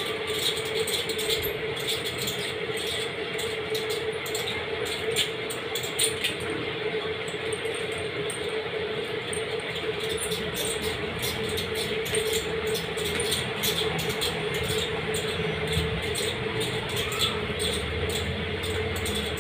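Eating sounds: scattered soft clicks and smacks of chewing and of food being handled on a plate, over a steady background hum.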